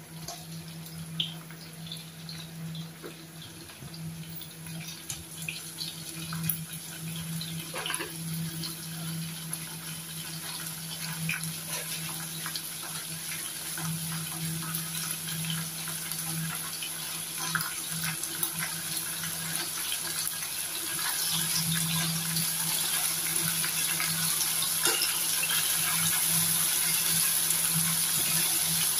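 Onions and chopped tomatoes sizzling in oil in a wok over a gas flame, with scattered pops. The sizzle grows louder, most of all in the last third. A steady low hum runs underneath.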